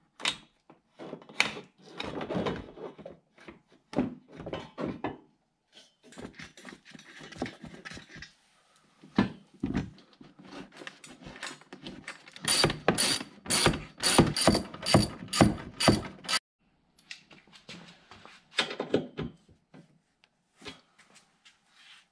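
Hand ratchet wrench clicking as bolts are tightened during reassembly of ATV plastic body panels and rack, mixed with knocks and rattles of the plastic being fitted. A quick, steady run of ratchet clicks lasts about four seconds, starting just past the middle.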